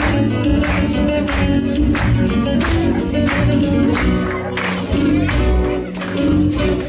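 Live band playing an instrumental interlude of a Latin American folk song, with guitar, and sharp beats about every 0.7 s that are the audience clapping along in time.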